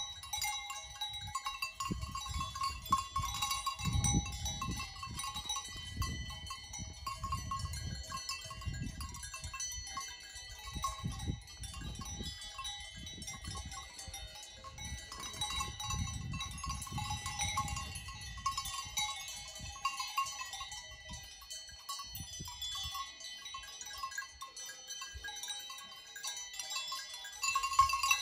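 Several alpine livestock bells ringing continuously as the animals move and graze, their overlapping tones blending together. A low rumble comes and goes underneath.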